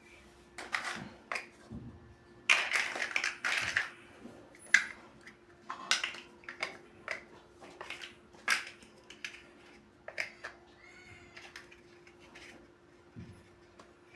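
Plastic building bricks clicking and rattling as pieces are handled and pressed together, in irregular sharp clicks with a denser burst of rummaging about three seconds in.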